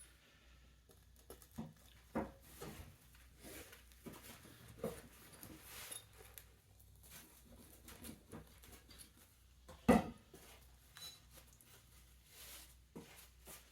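Scattered light clicks and scrapes of a kitchen knife cutting through a pizza, with one louder sharp knock about ten seconds in.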